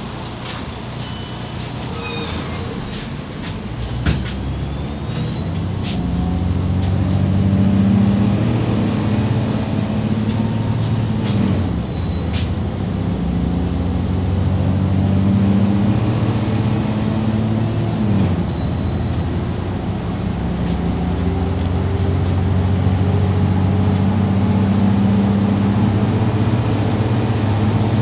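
MAZ 203.065 city bus pulling away and accelerating, heard from inside. A brief clatter and a knock come in the first few seconds, then the engine and driveline whine climb steadily in pitch. The automatic gearbox upshifts twice, each time dropping the pitch before it climbs again.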